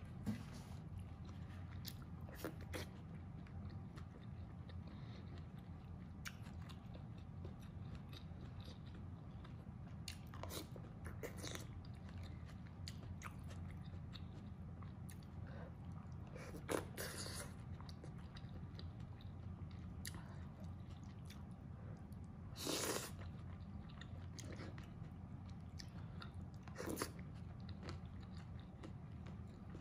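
Close-up eating sounds of a person chewing mouthfuls of mapo tofu, with a handful of short, sharper clicks and scrapes, one longer one about two-thirds of the way through, over a steady low hum.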